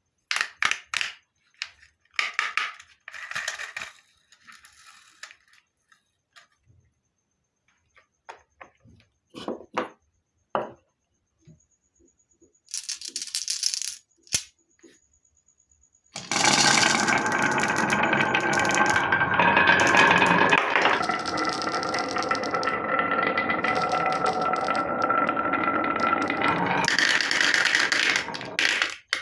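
Marbles clacking and rattling down a wooden marble run: scattered sharp clicks and short rattles at first, then from about halfway a dense, continuous rolling clatter that lasts until near the end.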